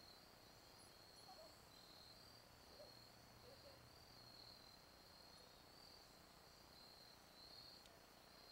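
Faint crickets chirping: a high, pulsing trill that repeats steadily.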